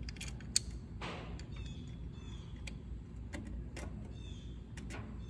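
Scattered light metallic clicks and ticks as a thin control cable is handled and fitted to the lever of a diesel injection pump, the sharpest click about half a second in, over a steady low background hum.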